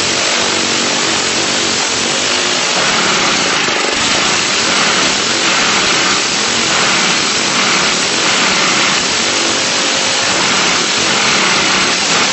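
Small single-cylinder vertical-shaft lawnmower engine, turned on its side to run as a horizontal-shaft engine, running loud and steady just after starting on its first test run.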